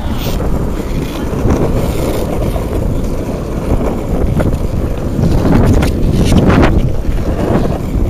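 Longboard wheels rolling over rough, wet asphalt, a steady low rumble, mixed with wind buffeting the microphone.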